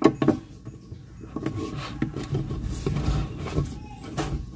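Screwdriver working the adjustment screw on a steel concealed cabinet hinge: a few light metal clicks at the start and again near the end, with low scraping and handling noise between.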